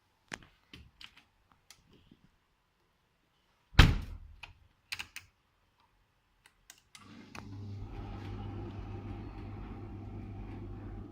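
Miele Professional washing machine starting a wash: a series of sharp clicks and one loud thunk, then from about seven seconds in a steady rushing noise over a low hum.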